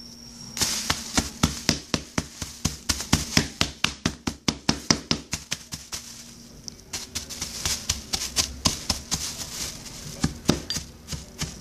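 Graham crackers in a plastic bag being smashed with repeated hard blows, each a sharp knock with crackling and crunching, about four a second. The blows pause briefly about halfway through, then start again.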